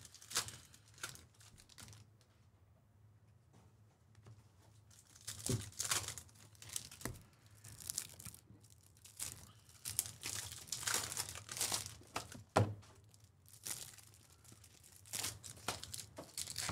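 Foil card-pack wrappers being torn open and crinkled by hand, in short, irregular bursts of rustling after a quiet first few seconds.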